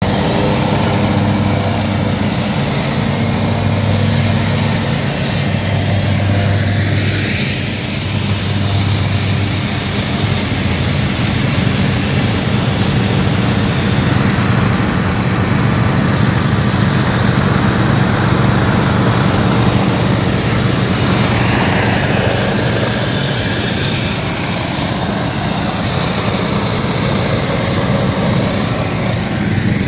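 Several ride-on lawn tractors running steadily with their cutting decks engaged, a low engine hum under the rush of the mowing, with a whine that sweeps in pitch twice as machines pass close.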